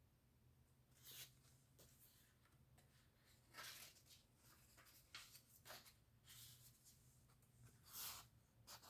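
Faint paper rustling as the pages of a printed journal are turned and handled: about eight soft, brief brushes, the clearest about three and a half seconds in and about eight seconds in, over a low steady hum.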